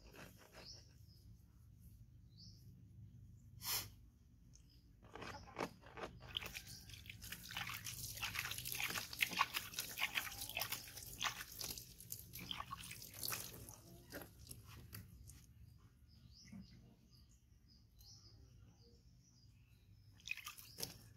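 A hand splashing and swishing in a plastic basin of water, a run of irregular splashes and drips in the middle, with a sharp click a little before it.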